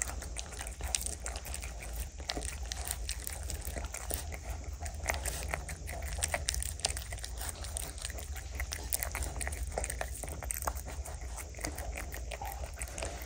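Golden retriever puppies eating soft food off a plate: a steady stream of small, irregular wet clicks and smacks of chewing and licking, over a steady low hum.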